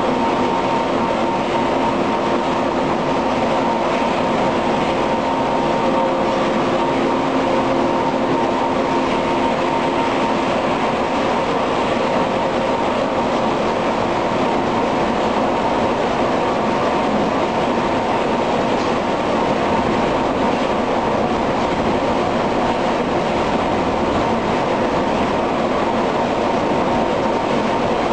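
Polysius vertical roller mill running: a loud, steady industrial din with several steady hums laid over it. A few of the lower hums fade about halfway through.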